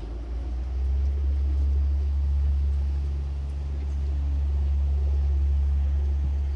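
A loud, steady low rumble that starts abruptly and cuts off just as abruptly after about seven seconds.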